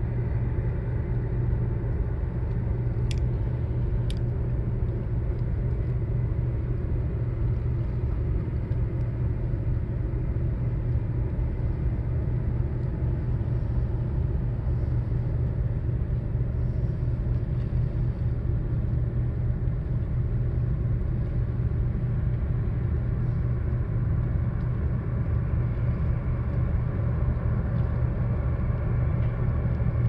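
A steady low engine drone with a constant hum, unchanging throughout.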